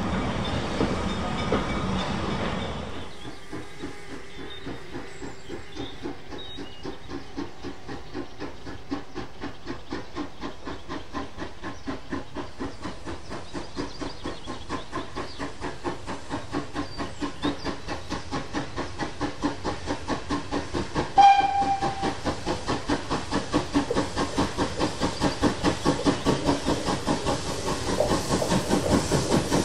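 Danish class F 0-6-0 tank locomotive No. 656 working a train of coaches: a rolling rumble of the coaches for the first few seconds, then the engine's fast, regular exhaust beats, growing louder. About two-thirds of the way through its steam whistle gives one short blast.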